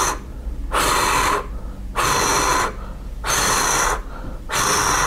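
A steady hissing 'shhh', repeated four times, each about two-thirds of a second long and about 1.3 s apart, each holding the same loudness from start to end: a demonstration of a plateau (constant-intensity) heart murmur.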